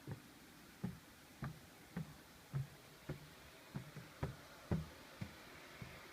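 Footsteps at a steady walking pace, about two a second, each a short low thud, over a faint steady hiss.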